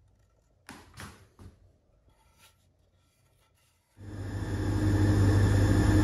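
A few light knocks, then about four seconds in a benchtop thickness planer's motor switches on and comes up to speed, running with a steady low hum.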